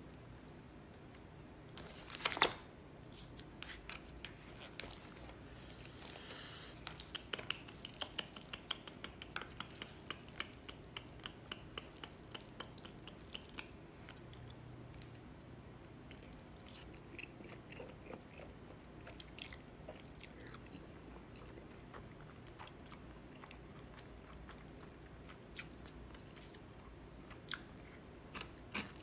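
A person eating jajangmyeon (black-bean noodles) close to a phone microphone: faint chewing with many small mouth clicks and smacks, and one sharper click about two seconds in.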